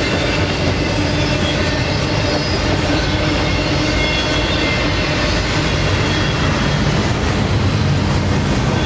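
Double-stack container well cars of a freight train rolling past close by, a steady loud rumble of steel wheels on rail.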